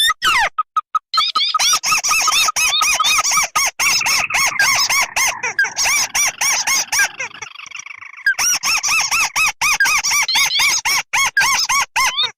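Bird-lure playback of crake calls, a combination of the red and white 'tikusan' crakes. It is a dense run of short, squeaky, up-and-down notes repeated about four or five times a second, with overlapping callers. The calls thin out briefly about eight seconds in before the full chorus resumes.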